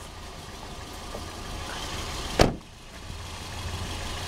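A car door slams shut once, sharply, about two and a half seconds in, over the steady low hum of the car's engine idling.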